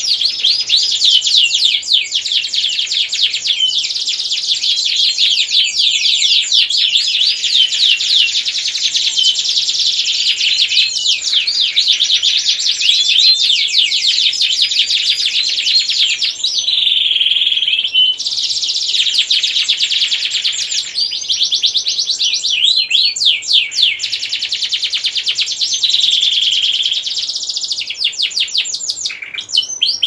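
Male domestic canary singing vigorously in long, fast rolling trills and warbled phrases, the rapid repeated-note "ngerek" song used as a breeding lure to bring canaries into condition. The song breaks off briefly about halfway and again near the end.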